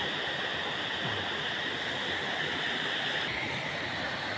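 A small waterfall of spring water running down a rocky ravine: a steady rushing hiss.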